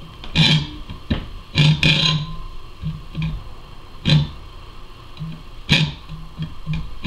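Hacksaw cutting through the metal handle of a teaspoon clamped in a bench vise: a few uneven rasping strokes with pauses between them.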